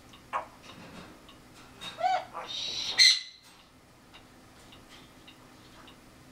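African grey parrot calling. A short sound just after the start is followed by an arched whistle-like call about two seconds in, then a louder, harsh, noisy call near three seconds, after which it is quiet.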